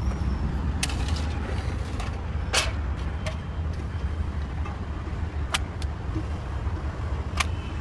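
Steady low rumble of passing road traffic, with a few sharp clicks and clinks as utensils and foil trays are handled.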